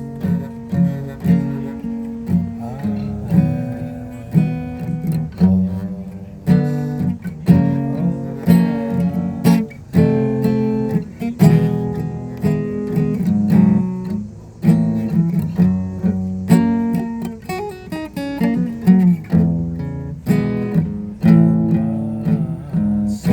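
Acoustic guitar being strummed, chord after chord at a steady, even rhythm.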